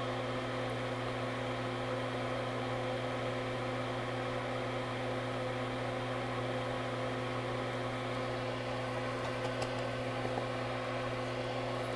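Steady electric hum and whir from running workbench equipment, holding one even pitch with a light hiss, plus a couple of faint small ticks near the end.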